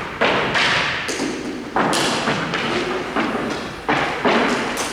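Hockey pucks and sticks knocking, about ten sharp hits at uneven spacing, each trailing off with a short echo.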